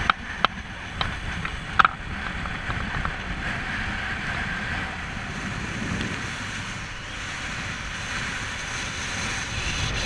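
Motorcycle running at highway speed, with wind rushing over the action camera's microphone. A few sharp knocks sound in the first two seconds.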